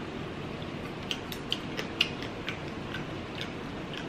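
Close-up mouth sounds of chewing a whole croaker fish: a series of sharp, irregular crunches and clicks, roughly two or three a second.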